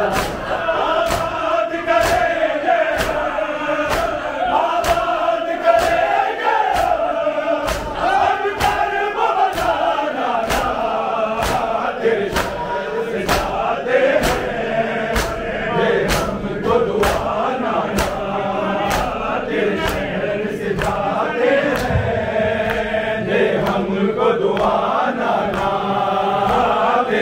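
A crowd of men chanting a noha in unison, sung in lament, over a steady rhythm of sharp slaps from hands beating on bare chests (matam).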